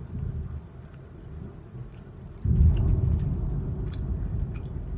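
Thunder: a low rumble that starts suddenly about halfway through, loud, and rolls on while slowly fading, over a quieter low rumble before it.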